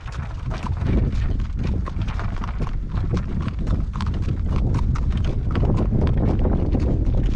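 Hooves of a horse fresh in new shoes clip-clopping steadily at a walk as it pulls a cart, over a steady low rumble.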